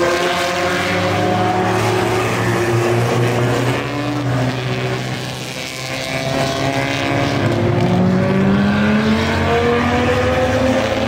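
Engines of 1950s vintage sports racing cars accelerating past one after another, their pitch rising as they pull away. The sound eases off about five seconds in, then another car's engine climbs in pitch and grows louder from about eight seconds.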